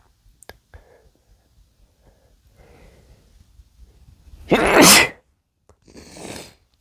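A man sneezes once, loudly, about four and a half seconds in, after a faint breathy build-up. A quieter breathy sound follows about a second later.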